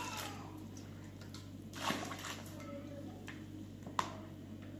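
Water splashing as it is poured from a steel bowl into a plastic basin of flour, with a second pour at about two seconds, then hands working the wet flour into dough. A single sharp click about four seconds in.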